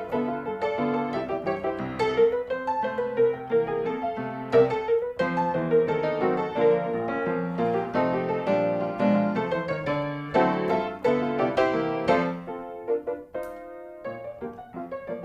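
Background piano music: a steady run of keyboard notes and chords.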